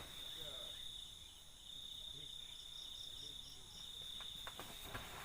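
Insects chirring steadily, a continuous high buzz, with a short run of faint pulsed chirps from another insect about halfway through.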